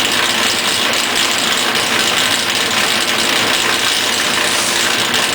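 Sandpaper rubbing on a wood baseball bat, a steady rasping hiss with a machine's motor running steadily underneath.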